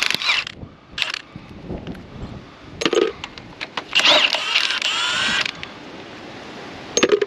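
Cordless impact wrench undoing a tractor's frame-rail bolts. It fires in several short bursts, then runs for about a second and a half about four seconds in, its pitch rising and falling.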